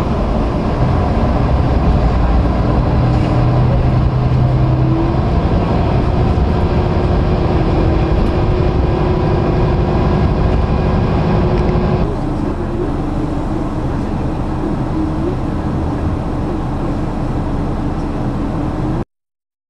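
Diesel railcar running, heard from inside the car: a steady engine hum mixed with rolling noise. About twelve seconds in it cuts abruptly to a quieter run, and it stops dead near the end.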